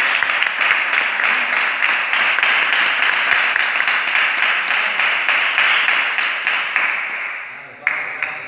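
Applause: many hands clapping quickly together, dying away shortly before the end.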